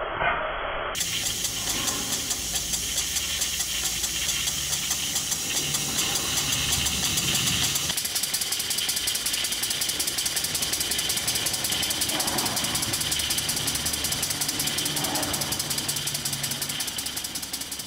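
Stuart Victoria model horizontal mill engine running on steam: a fast, even beat of exhaust puffs and light mechanical clatter over a steady steam hiss, fading out near the end.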